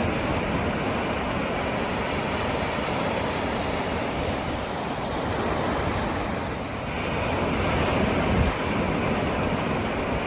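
Ocean surf: waves breaking and washing in one after another as a steady rush, easing a little about seven seconds in, then swelling to its loudest with a low thud just after eight seconds.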